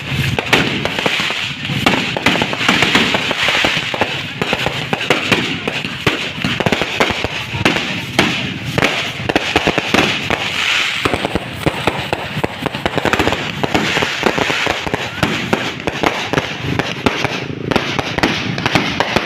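Fireworks going off in a dense, unbroken run of rapid pops and crackles.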